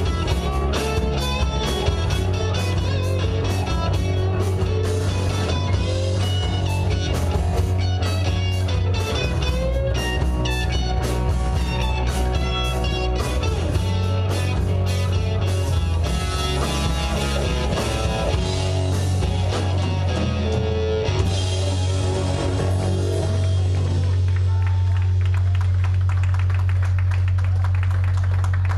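Live rock band playing with electric guitar, bass guitar and drums. About 21 seconds in, the notes give way to a held low chord under a steady wash of cymbals, like the drawn-out ending of a song.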